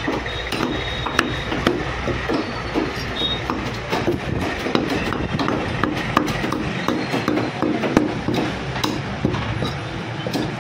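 Butcher's cleaver chopping mutton on a wooden chopping block: a run of quick, uneven knocks, several a second, over steady background noise.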